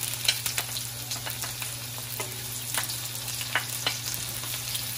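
Minced garlic sizzling in hot cooking oil in a wok, with scattered crackles and pops as sliced onions are dropped into the oil.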